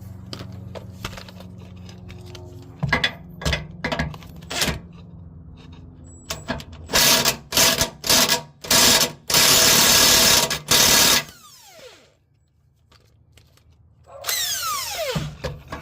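Power tool running in short bursts on a 13 mm fuel tank mounting bolt, then one longer run of about a second and a half. Its motor then winds down with a falling pitch.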